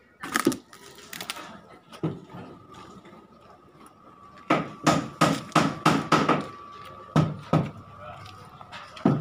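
Hammer blows on timber formwork: a few scattered knocks, then a quick run of about eight blows around the middle, then a few more near the end.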